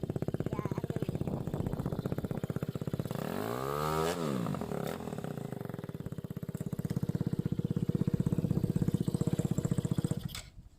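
Suzuki Raider R150 motorcycle's single-cylinder four-stroke engine idling through an aftermarket exhaust with a Thai-made elbow pipe. It is revved once about three seconds in, the pitch rising and falling back, then idles on until it stops abruptly near the end.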